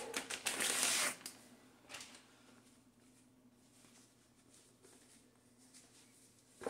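Packaging crinkling and rustling as it is handled for about a second, a brief rustle about two seconds in, then quiet with a faint steady hum and a light knock near the end.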